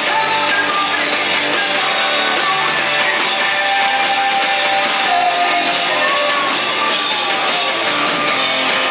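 Rock band playing live and loud: electric guitar and drums, with the singer's voice riding over them in long, held, bending notes.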